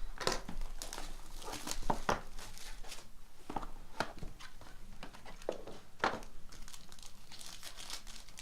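Wrapping being torn and crinkled as a sealed trading-card box and pack are opened by hand: irregular crackling rustles.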